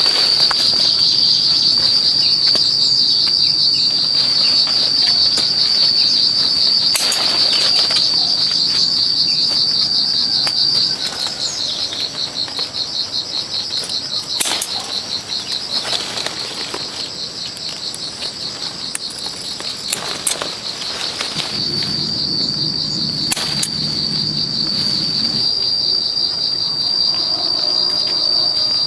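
A steady, high-pitched drone of insects in the trees, which breaks into a fast pulsing trill for a few seconds near the middle. A few short clicks and rustles come through it.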